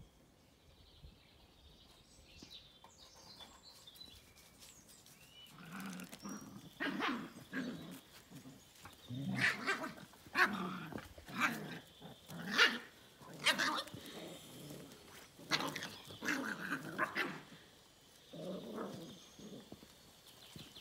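Puppies barking and growling in rough play, a string of short sharp bursts that starts about six seconds in and dies away near the end.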